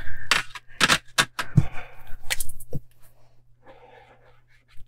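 Sharp clicks and taps of plastic alcohol-marker barrels being handled and set down. Near the end comes a faint scratchy rub of a brush-tip marker swatching on paper.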